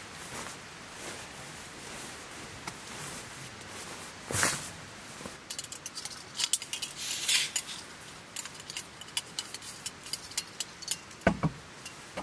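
A run of small clicks and clinks from objects being handled, thickest in the middle. There is a brief scraping rush about four seconds in and a low thud near the end.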